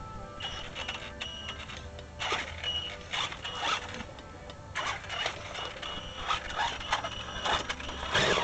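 Axial Yeti RC rock racer's electric motor and gears whining in short throttle bursts, several times, with rattling and scrabbling as it climbs and tumbles over logs and bark.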